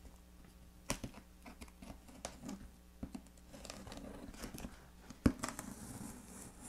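Folding knife slitting thick packing tape along a cardboard box's seam: a scratchy rasp of the blade through tape and cardboard that sets in about halfway, with scattered sharp knocks, the loudest a little past five seconds in.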